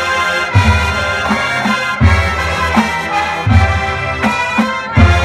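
University marching band playing loud brass chords, with heavy low accents about every one and a half seconds.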